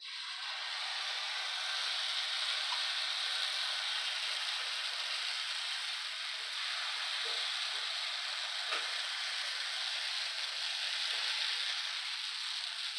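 Pancake batter sizzling steadily on a hot stovetop griddle as it is poured onto it from a blender jar, with an occasional faint click.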